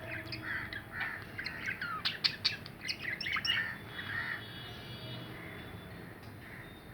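Two budgerigars chattering: a rapid jumble of chirps, clicks and squawks, busiest in the middle, thinning to softer warbling toward the end.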